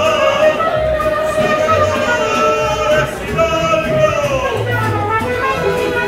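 Live mariachi band playing, with trumpet and guitars: long held melody notes over a plucked guitarrón bass pulsing about once a second.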